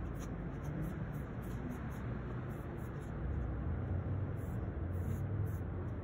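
Steady low rumble of city background noise, with short, irregular hisses of an aerosol spray-paint can being sprayed onto a wall.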